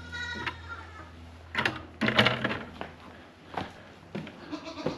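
Knocks and clunks of a chicken coop's fittings being handled, the loudest about two seconds in, after a short high squeal at the start.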